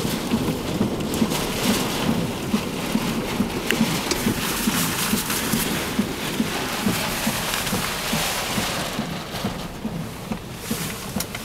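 Heavy wind-driven rain lashing a car, with gusting storm wind surging in uneven waves, heard from inside the cabin.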